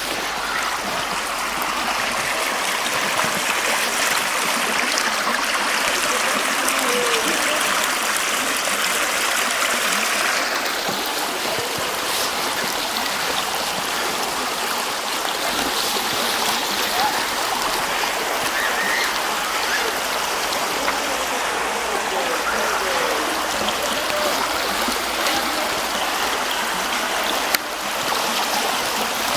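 Mountain river swollen with snowmelt, its water running in a steady rush that eases slightly about ten seconds in. A single sharp click comes near the end.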